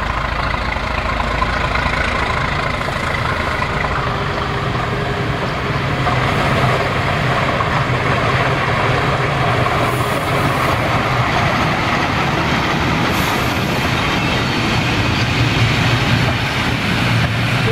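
DB Class V 65 diesel locomotive running under power as it approaches and passes, hauling a train of vintage passenger coaches. Near the end the coaches roll past close by on the rails.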